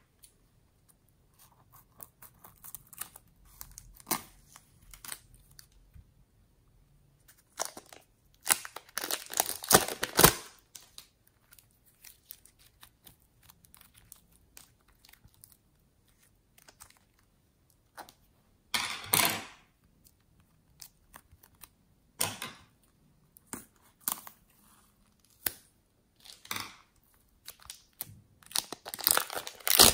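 Hands stretching, folding and pulling apart soft rainbow-striped clay, which gives sticky crackling and tearing sounds in scattered bursts. The loudest run comes about a third of the way in, with shorter bursts later and another near the end.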